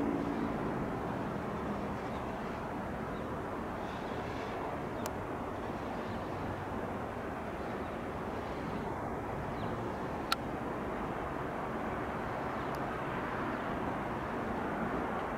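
Steady outdoor city background noise, a constant hum of distant traffic, with a few faint brief clicks and a sharp click about ten seconds in.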